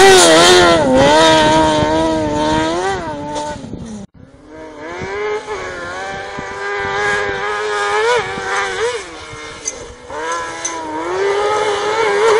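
Car-cross buggy's motorcycle-type engine revving hard, its pitch climbing and dropping with each gear change as it is driven flat out. The sound cuts off abruptly about four seconds in, then the engine comes back fainter, revving in long rising sweeps and growing louder near the end.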